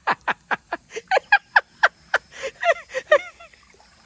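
An animal calling in a rapid series of short, falling chirps or yelps, about four a second, thinning out in the last second.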